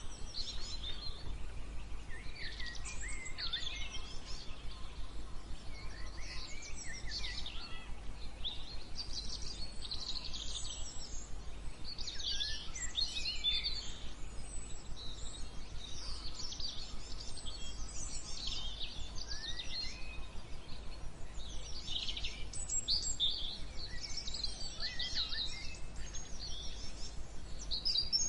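Several birds singing together, a continuous overlapping run of high chirps, trills and quick whistled phrases, over a steady low rumble.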